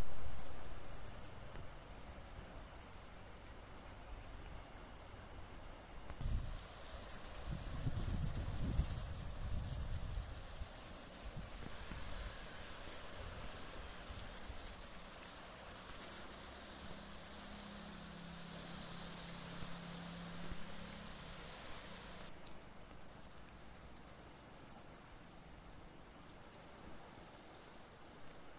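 Insects chirring in a dense, high-pitched pulsing chorus. Wind buffets the microphone from about six to ten seconds in, and a faint low hum comes in briefly past the middle.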